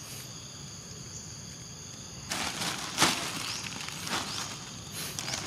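Steady high-pitched insect buzzing, with a few short rustling crunches that begin about two seconds in; the sharpest comes about three seconds in.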